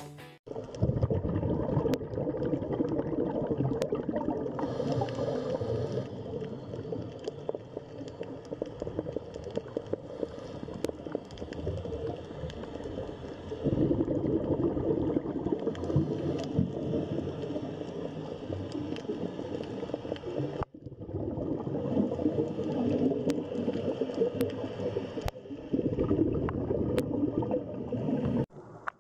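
Underwater ambience as picked up by a diving camera: muffled gurgling, bubbling water with scattered sharp clicks, broken briefly about two-thirds of the way through.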